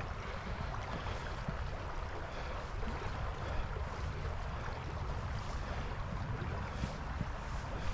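Steady rush of creek water, with a low rumble of wind buffeting the microphone.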